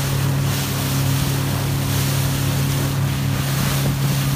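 Speedboat engine running at a steady cruising hum as the boat moves across open sea, with water rushing past the hull and wind buffeting the microphone.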